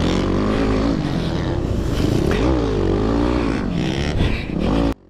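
Yamaha WR250R dirt bike's 250 cc single-cylinder four-stroke engine at race pace, its pitch climbing and dropping again several times as the throttle is worked through the gears. The sound cuts off abruptly near the end.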